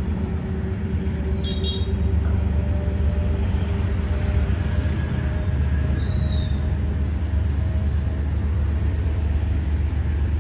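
Steady low rumble of a running vehicle engine, with a faint steady hum over it.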